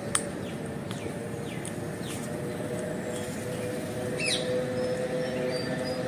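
Short, high, falling bird chirps: a few faint ones in the first two seconds and a louder one about four seconds in, from a cage of Indian ringneck parakeets. A sharp click comes right at the start, and a faint steady hum runs underneath.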